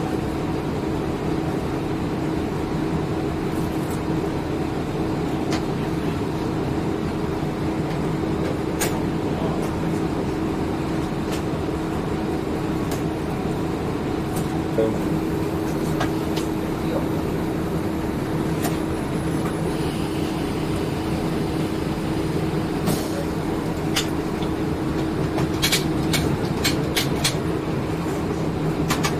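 Diesel railcar engine idling steadily with a held drone while the train stands in the station, heard from inside the driver's cab. Sharp clicks come now and then, several in quick succession near the end.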